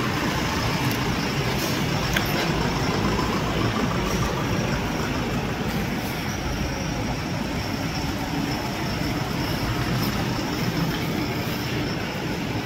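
Diesel engines of Eicher trucks carrying suction-cum-jetting tanks, running steadily as the trucks drive past one after another.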